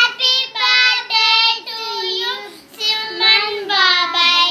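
Two young boys singing together, a run of held notes in short phrases with brief breaks between them.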